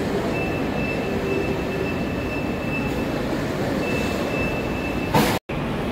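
Steady low rumble with a faint high whine heard twice. The whine comes from a vending machine's banknote acceptor drawing in a note and pushing it back out, rejecting it. A short loud noise comes near the end, then the sound cuts off suddenly.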